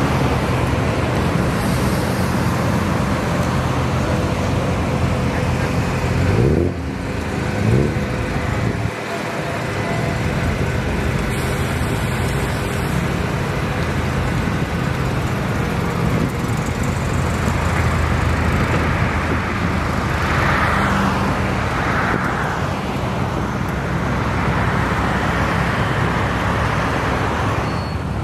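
Classic car engines running at low speed, a steady hum with a short rev rising in pitch about seven seconds in.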